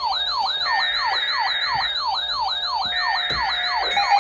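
Electronic siren yelping rapidly, about four falling sweeps a second. Over it, two roughly one-second buzzy data screeches from the Emergency Alert System header, the coded burst that opens a broadcast alert.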